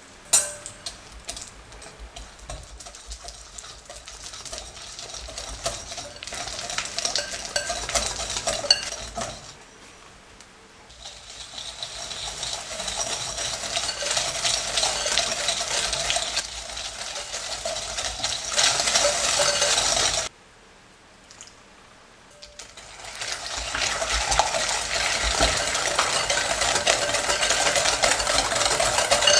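Hand whisk beating softened butter and sugar in a glass bowl: fast, continuous scraping and clinking strokes against the glass as the butter is creamed. The whisking comes in three long bouts separated by two short pauses, and a single sharp clink is heard right at the start.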